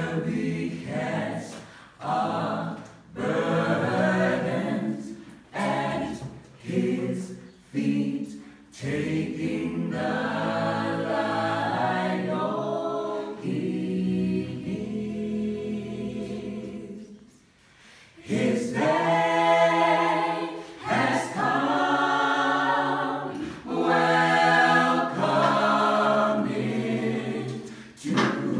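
Small mixed choir of men and women singing a cappella, with no instruments. After a brief pause about seventeen seconds in, the voices come back louder on long held chords.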